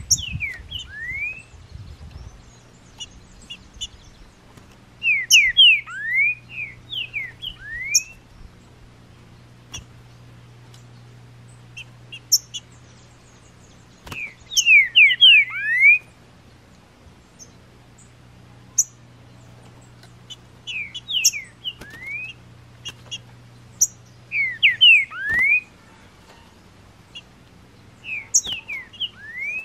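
Green-winged saltator (trinca-ferro) singing: short phrases of several loud whistled notes, repeated every few seconds.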